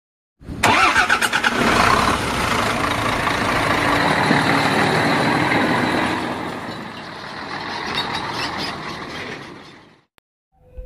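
Heavy diesel trucks running and driving past, loud at first, easing after about six seconds and cutting off just after ten seconds.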